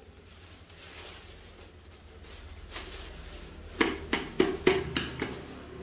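Plastic bags rustling as dried eggshells are handled, then a quick run of about six sharp clicks and clatters of hard pieces knocking together.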